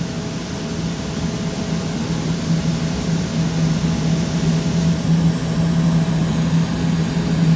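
Airbus A350's Rolls-Royce Trent XWB jet engines running: a steady low hum over a broad rushing noise, growing slightly louder toward the end.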